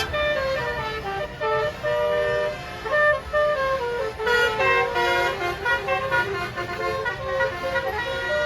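Tour bus's basuri telolet horn, a multi-tone melodic air horn, playing a tune: a quick run of horn notes stepping up and down one after another.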